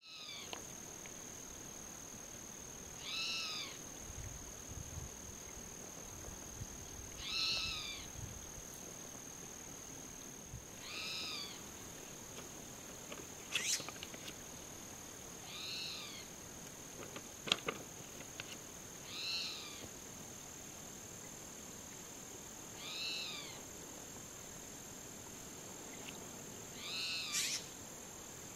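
Spotted towhee giving its contact call: a short arching note repeated eight times, about every three to four seconds. A steady high-pitched whine runs underneath.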